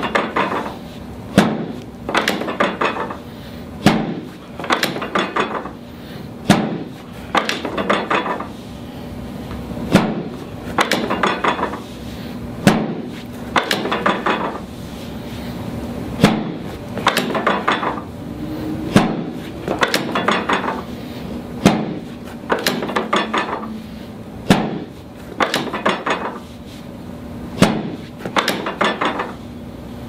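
Chiropractic drop table's drop section snapping down with a sharp clack under a hand thrust on the ribs, about every three seconds and about eleven times in all. Each clack is followed by a brief rattle as the piece settles and is set again.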